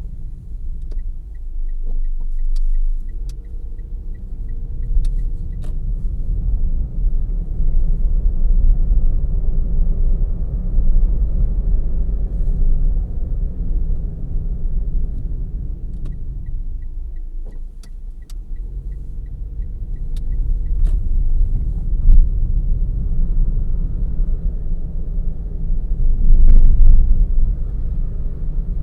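Car driving, heard from inside the cabin: a steady low rumble of engine and road noise that swells and eases with speed. Twice, once near the start and again about halfway through, a light regular ticking runs for about five seconds at roughly three ticks a second, like a turn-signal indicator.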